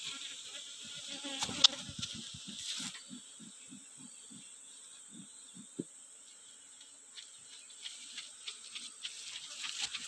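Asian honey bees (Apis cerana) buzzing around an opened box hive, with short low buzzes as single bees fly past, over a steady high whine. A sharp click comes about a second and a half in.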